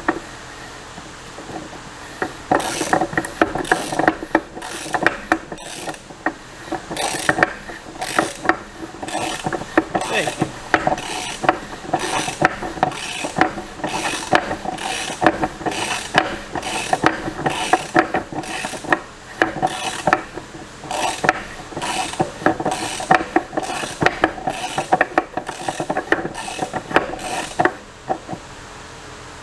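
Hand ratchet wrench being worked back and forth, clicking in steady strokes about twice a second, as a bolt is tightened down on a Polaris Ranger 900 transmission.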